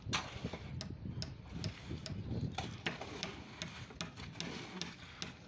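Small metal shovel scraping and clinking through a wet concrete mix of broken brick chips and cement, with irregular sharp clicks about three times a second over a low scraping.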